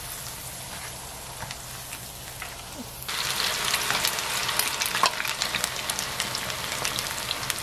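Battered angelica-tree shoots deep-frying in a small pan of oil, sizzling fairly quietly at first. About three seconds in the sizzle suddenly jumps to a louder, denser crackling as a fresh batch of battered shoots goes into the hot oil.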